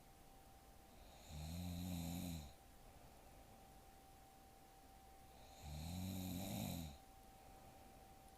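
A young woman snoring in her sleep: two snores about four seconds apart, each lasting about a second.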